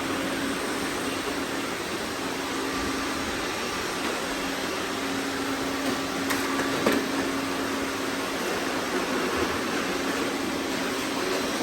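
Robot vacuums running: a steady whirring hum with a constant low tone, broken by a couple of brief clicks and a knock a little past the middle.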